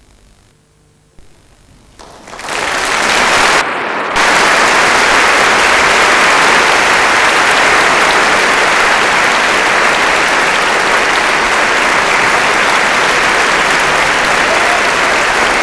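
A large concert audience breaking into applause about two seconds in, swelling quickly into loud, sustained clapping at the end of the opera. The sound dips briefly about four seconds in.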